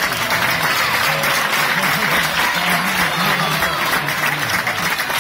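Audience applauding, a dense steady clatter of many hands, with music playing underneath.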